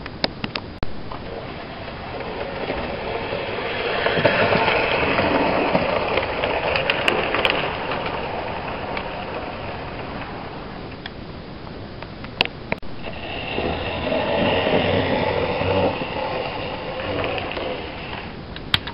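OO gauge model train running on the track: a motor whirring and wheels rolling on the rails, growing louder twice as it comes close, with a few sharp clicks.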